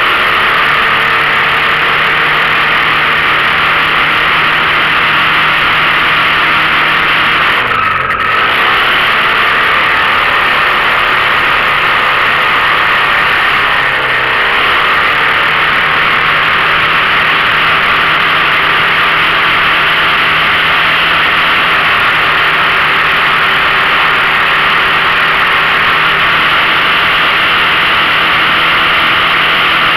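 A 15 hp outboard motor running steadily under way, over a loud, steady rushing hiss. Its note dips briefly about eight seconds in and wavers again around fourteen seconds.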